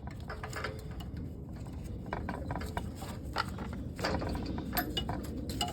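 Scattered light clicks and knocks of hands working on the snowblower engine, moving the ignition coil wire and nearby parts, over a steady low background hum.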